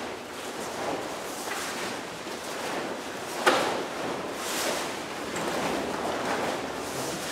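A group of taekwondo students performing a form together: uniforms swishing and snapping with their punches and kicks, and bare feet moving on foam mats, with one sharp crack about three and a half seconds in.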